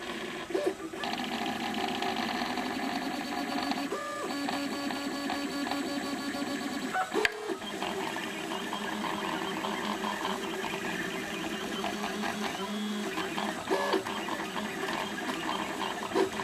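Stepper motors of a homemade RepRap Prusa i3 3D printer whining as the print head and bed move during a print. The pitch jumps to a new set of tones with each change of move, several times.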